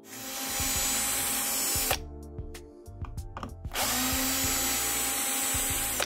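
Power drill-driver running in two bursts of about two seconds each, driving out the screws of a soundbar's casing. The second run winds up in pitch as it starts.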